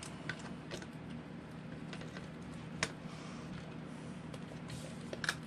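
Hard plastic RC buggy parts clicking and tapping against the aluminium chassis plate as they are handled and fitted: a few scattered clicks, the sharpest about three seconds in, over a steady low hum.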